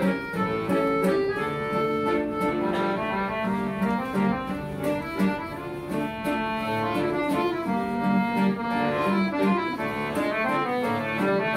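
Live tango music from a duo: a button accordion playing sustained melody notes over a nylon-string classical guitar's plucked accompaniment.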